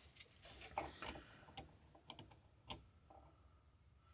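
Faint, scattered small clicks and taps, about half a dozen in four seconds, from hand tools and copper electrical wire being worked at a receptacle.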